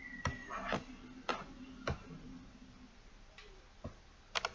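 A handful of sharp, irregular clicks and taps over a faint low hum that fades out about three seconds in.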